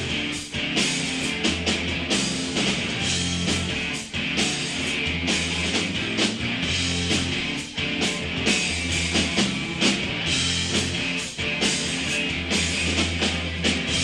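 Rock band playing live: electric guitar and bass holding sustained low notes over a steady drum-kit beat, with no singing in this passage.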